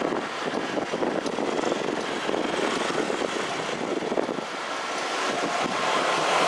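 Odakyu 3000 series electric train approaching on the rails: a rumbling rush of wheels and motors that grows steadily louder toward the end.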